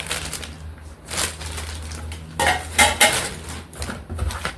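Stainless steel pieces of a Pigeon 3-in-1 pressure cooker (pot, lid and strainer) clinking and knocking together as they are handled and fitted, a few sharp metallic knocks in all.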